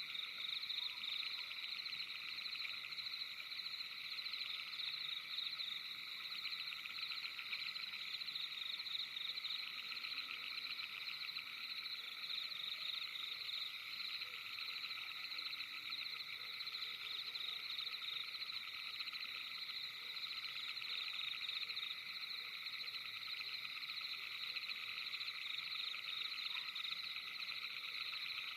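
A steady, dense night chorus of trilling frogs: many fast-pulsing calls overlap in several high pitch bands without a break.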